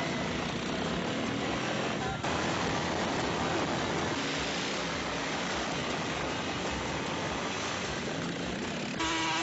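Engine of a side-by-side utility vehicle running as it drives over sand, under a loud, even hiss, with a brief break about two seconds in.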